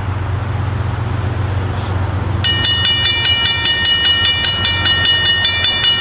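Railroad grade-crossing warning bells start ringing suddenly about two and a half seconds in, in rapid, evenly spaced dings, over a steady low hum. The crossing bells sound when the crossing is activated for an approaching train.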